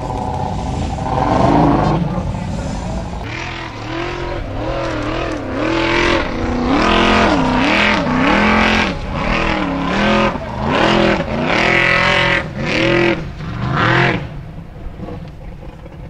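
Formula Offroad buggy's engine revving hard under load up a steep sand hill, pitch swinging up and down about once a second as the throttle is worked, then falling away near the end.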